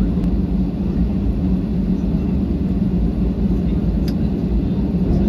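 Cabin noise of an Airbus A320 taxiing, heard inside the cabin by the wing: a steady low rumble from the engines at taxi power and the wheels rolling over the concrete.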